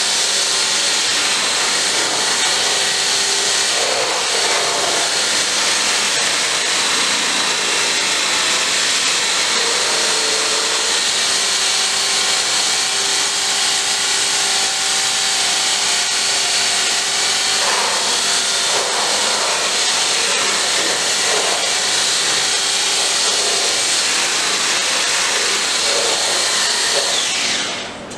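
Electric hand blender running steadily in a tub of liquid soft-serve ice-cream mix, blending in the flavour: a steady high whine over a rough churning. It switches off near the end, the whine falling away as the motor spins down.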